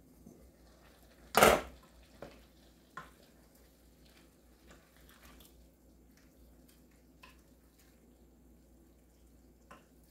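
Enamel Dutch oven lid clanking once, sharply, about a second and a half in as it is taken off and set down. Then a wooden spoon stirs bow-tie pasta in the pot with a few soft clicks and scrapes.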